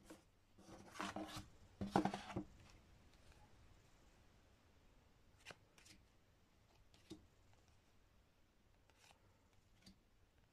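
Stiff game cards sliding and rubbing against each other in the hands as a fan of cards is handled: two short rustling swishes about one and two seconds in, then a few faint ticks of cards being moved.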